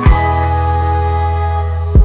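Background music: a held deep bass note under sustained chords, with a drum hit at the start and another at the end.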